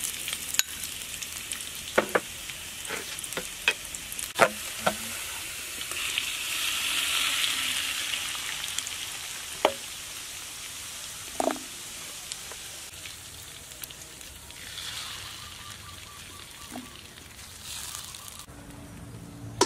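Hot oil sizzling in a thin aluminium wok as minced garlic fries, with sharp clicks of a metal spoon tapping and scraping the pan. About six seconds in, the sizzle swells as a beaten egg mixture is poured into the oil and starts to fry.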